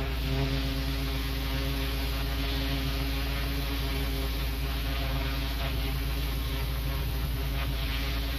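Pressure washer running steadily: a constant machine drone under the hiss of the high-pressure jet spraying onto block paving.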